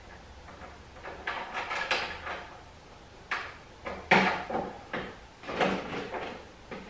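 Irregular clicks, knocks and rattles of a lawn mower's metal handle and its wing nut being handled and threaded onto a carriage bolt by hand, with a few louder knocks.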